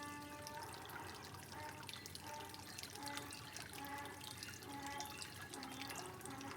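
Gentle trickling and dripping water, a steady soft splashing with many small drips, under soft held musical notes that change every second or so.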